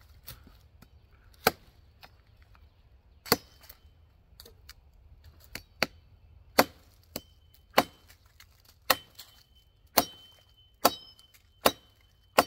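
A machete chopping into a dead log, about a dozen sharp blows, spaced out at first and then roughly one a second. Several blows leave a light metallic ring from the blade.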